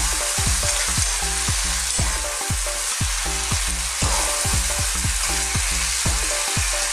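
Chicken pieces and yardlong beans (sitaw) with tomato and onion sizzling steadily in a hot oiled frying pan while being stirred with a spoon.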